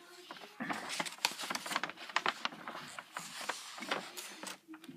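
A quick, irregular run of light clicks and taps.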